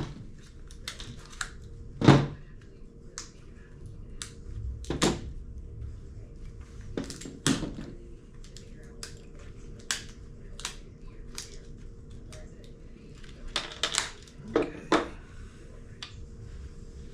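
Irregular clicks, taps and knocks of hand tools scraping and prying charred, burnt-out parts out of an old Milwaukee drill's plastic housing, with a few louder knocks among them.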